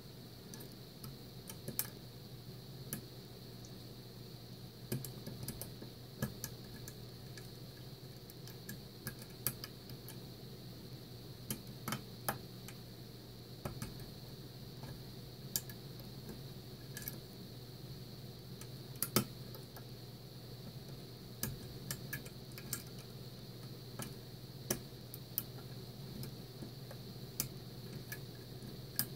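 Scattered, irregular metallic clicks and ticks of a lock pick working the pins of a Mul-T-Lock Interactive cylinder held under tension.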